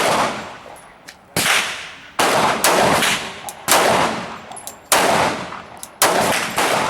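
Gen 2 Glock 23 pistol in .40 S&W firing a string of single shots, about one a second and not evenly paced, each crack followed by a fading echo. Faint light ticks fall between some shots.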